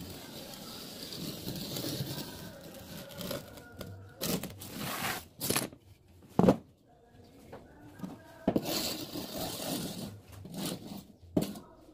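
A wooden screeding piece scraping over damp sand-and-cement mortar along the edge of a long metal form, in repeated separate strokes. A sharp knock about six and a half seconds in is the loudest sound.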